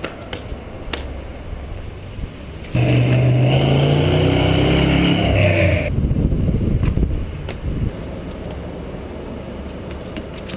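A motor vehicle's engine passing close for about three seconds, starting and stopping suddenly, its pitch sliding down as it goes by. Around it is steady outdoor rumble with a few light knocks.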